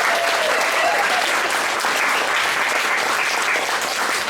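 Audience applauding steadily, a crowd of many hands clapping at once.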